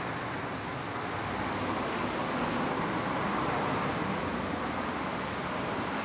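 Steady road traffic noise, a little louder in the middle.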